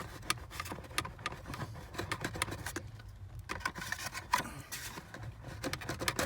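Irregular plastic clicks and rattles as the blower motor's plastic housing and its clip are wiggled loose by hand, with a briefer lull about halfway through.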